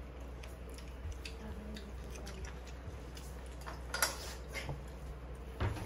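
Eating sounds: soft chewing and noodles being slurped, with small clicks of chopsticks against a bowl. The sharpest click comes about four seconds in, another near the end.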